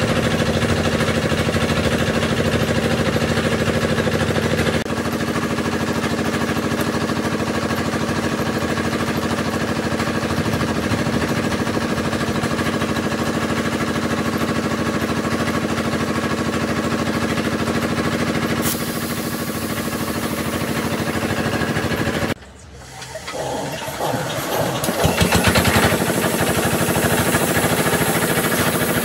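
Small engine of a tank-mounted air compressor running steadily. About 22 seconds in, the sound drops away suddenly and then builds back up over a few seconds.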